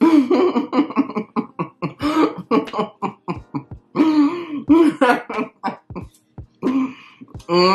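A person's voice in a rapid string of short, loud bursts, one after another.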